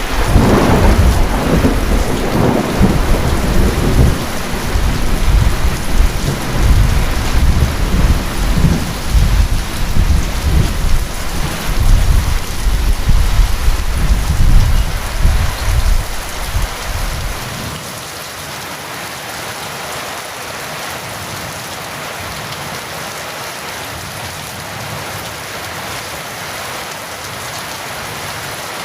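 Heavy, steady rain with a clap of thunder right at the start, its deep rumble rolling on and fading away about two-thirds of the way through, leaving only the rain.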